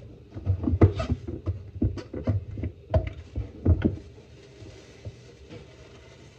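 A quick run of knocks and thumps lasting about three and a half seconds, with the heaviest hits about a second in and near the four-second mark.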